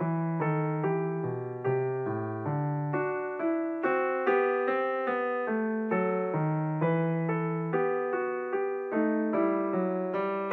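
Background piano music: an evenly paced run of single notes, each struck and fading, over lower bass notes.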